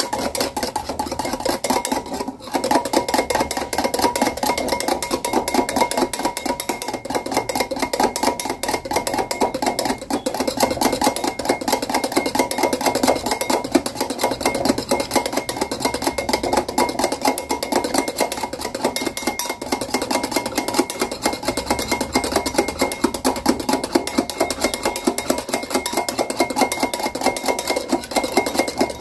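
Wire whisk beating a thick instant coffee, sugar and water mixture in a glass bowl: fast, continuous clicking of the metal tines against the glass as the mixture is whipped into a foam. There is a brief pause about two seconds in.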